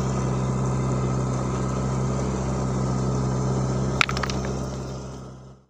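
Steady drone of the engine of a dompeng gold-mining suction machine running, with one sharp click about four seconds in; the sound fades away at the very end.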